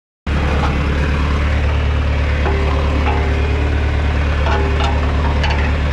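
Tractor engine running steadily with a deep, even hum, cutting in abruptly just after the start.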